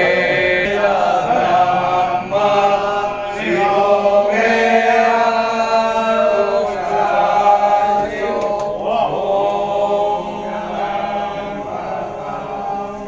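Voices chanting a devotional hymn together during the Bhasma Aarti, a temple ritual for Shiva, holding long notes that shift in pitch every few seconds.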